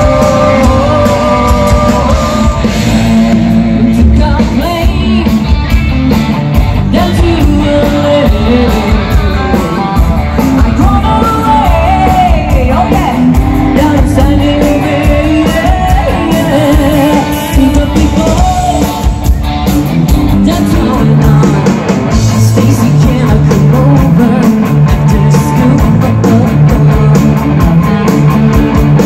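Live rock band playing loud through a stage PA: drums, electric guitars and bass under a lead vocalist singing.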